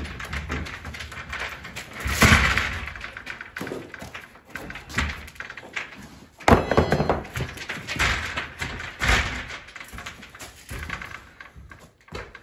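Old wooden wall panelling being pried and wrenched loose with a pry bar: irregular heavy thunks and knocks of wood, the loudest about two seconds in and again past the middle.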